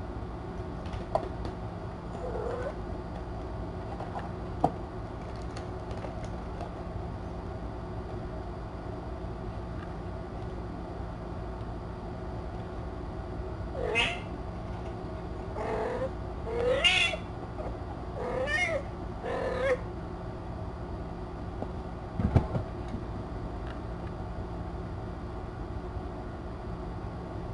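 A cat meows about five times in quick succession around the middle, each call bending up and down in pitch, over a steady room hum. A few light knocks come early on, and a sharp thump follows a couple of seconds after the meows.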